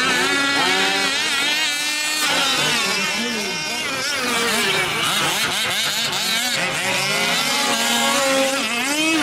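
Several 1/5-scale RC off-road trucks racing, their small two-stroke gas engines revving up and down in overlapping, constantly changing pitches.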